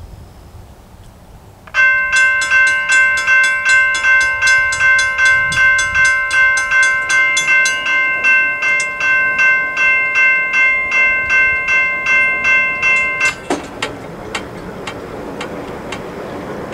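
Railroad crossing warning bells start suddenly and ring steadily at two to three strikes a second, each stroke ringing on. About eleven seconds later the steady ringing cuts off, and a few weaker, irregular dings follow while the crossing gates come down.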